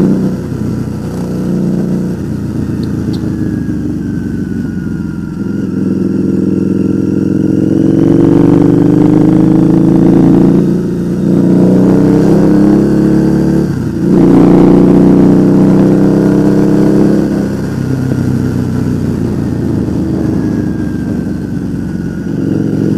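Harley-Davidson V-Rod's liquid-cooled V-twin engine running under way. The revs climb in several rising sweeps, with brief sharp dips about eleven and fourteen seconds in, then settle to a steadier, lower note for the last few seconds.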